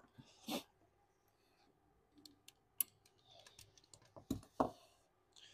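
Light plastic clicks and rattles of a plug-in diagnostic controller's connector and cable being handled and pushed into the drive's port, with two sharper knocks a little over four seconds in.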